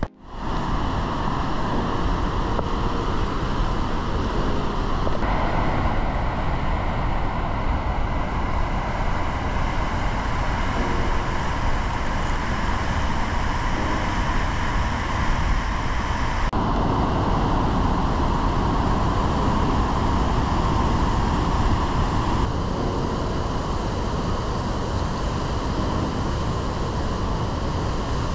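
Steady roar of Gullfoss, a large waterfall, rushing water with no break. The tone changes abruptly about 5, 16 and 22 seconds in.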